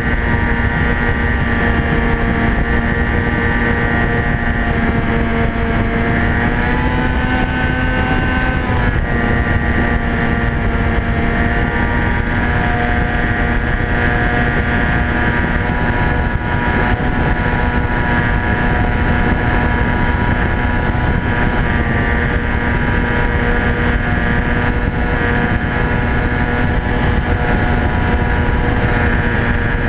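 Polaris snowmobile engine running steadily under way along a trail, with a dense rumble beneath it. Its pitch rises about seven seconds in and settles back a couple of seconds later.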